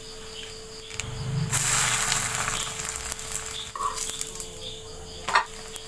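Beaten egg frying in a pan of hot coconut oil: a loud burst of sizzling starts about a second and a half in and eases off after a couple of seconds, with a short knock near the end.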